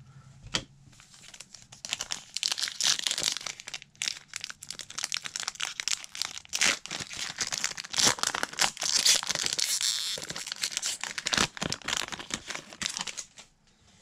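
Foil trading-card pack wrapper crinkling and tearing as it is ripped open by hand: a dense run of sharp crackles that starts about two seconds in and stops just before the end.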